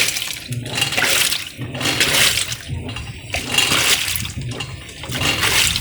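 Automatic washing machine agitating in its wash cycle, water sloshing in surges about once a second as the pulsator swings back and forth.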